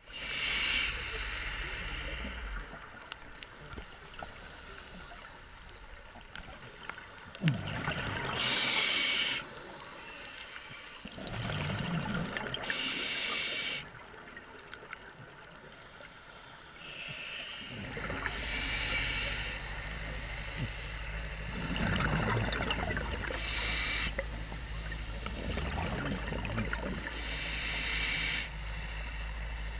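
Scuba diver breathing through a regulator underwater: exhaled bubbles rush out in a noisy burst every four to six seconds over a low steady rumble.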